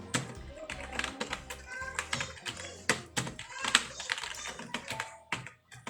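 Computer keyboard keys being pressed in quick, irregular clicks, over background music.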